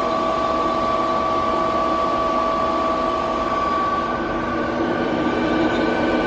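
Star SB-20R Swiss-type CNC automatic lathe running a machining cycle: a steady machine whine over a hiss, which changes to a different pitch about four seconds in.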